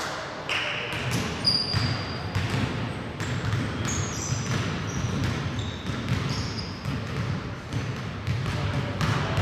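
Basketball game play in a gym: a ball bouncing on the hardwood floor amid repeated short knocks, with brief high squeaks scattered throughout, typical of sneakers on the court.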